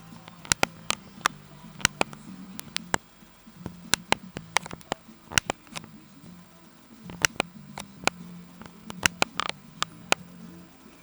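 Computer keyboard keys clicking irregularly, a few sharp presses a second, some in quick pairs, over a low steady hum.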